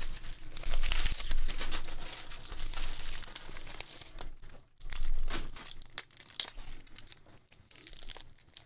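A paper envelope rustling and crinkling as it is handled and opened, loudest in the first few seconds and again about five seconds in. Softer crinkling of a plastic bag holding a graded card slab follows near the end.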